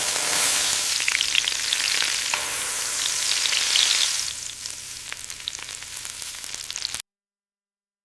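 Dense crackling hiss, quieter after about four seconds, that cuts off suddenly about seven seconds in.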